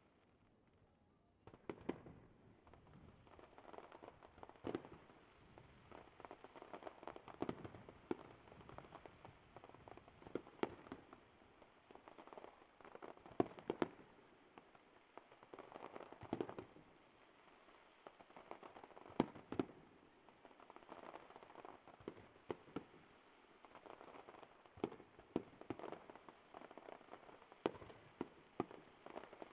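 Aerial fireworks display: after a short lull, an irregular, rapid run of shell bursts and sharp reports with crackling in between, going on to the end.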